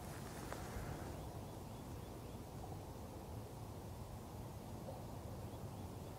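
Faint natural outdoor ambience: a low, steady wind rumble with a few faint bird chirps about two seconds in.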